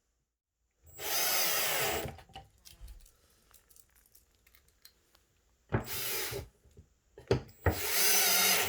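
Power drill running in three short bursts, driving single-sided shelf-support studs into a wooden panel.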